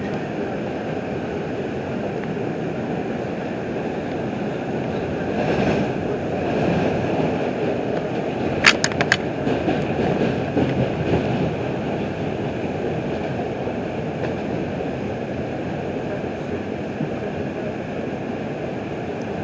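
R142 subway car running along the track, a steady rumble heard from inside the car. It swells slightly a few seconds in, and about nine seconds in comes a quick run of three sharp clicks.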